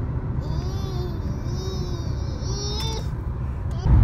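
Steady low road rumble of a car, heard from inside the cabin while driving, with a faint rising-and-falling tone repeating about every half second over it.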